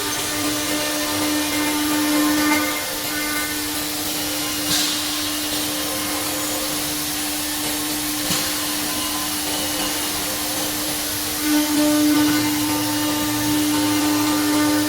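The router spindle of a CNC router-bit jigsaw (Semac SM 2500A) running with a steady high whine, with the hiss of the machine working. Two brief sharp ticks come in the middle, and the sound grows louder about three-quarters of the way through.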